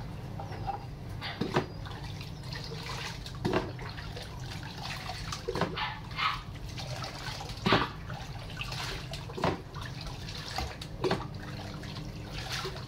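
Water poured from a mug over a puppy standing in a kitchen sink, with short splashes and dripping about every couple of seconds over a steady low hum.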